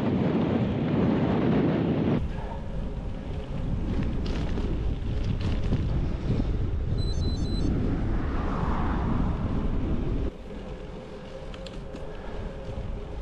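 Wind rushing over the microphone of a camera on a moving bicycle, a steady low rumble, loudest for the first couple of seconds, then lower, and dropping again suddenly about ten seconds in.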